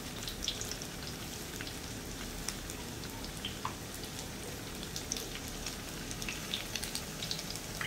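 Pork belly cubes sizzling steadily in their own rendered fat, with many small pops and crackles scattered through. The fat has come out of the pork itself, with no oil added, as it crisps into lechon kawali.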